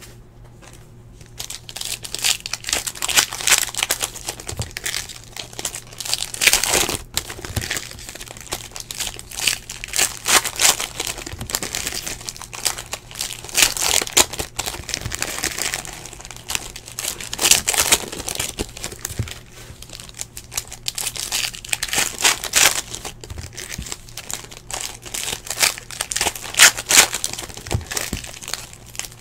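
Basketball trading-card pack wrappers being torn open and crinkled by hand, in irregular bursts of rustling and crackling.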